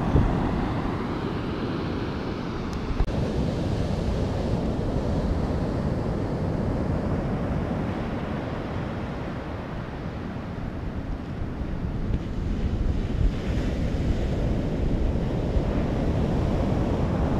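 Sea surf washing onto a beach, with wind buffeting the microphone. The rush of the waves eases a little in the middle and builds again near the end.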